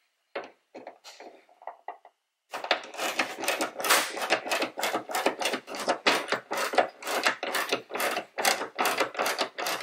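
Ratchet wrench clicking as a bolt at the hood hinge bracket is turned. A few scattered clicks come first, then after about two and a half seconds a fast, steady run of clicks.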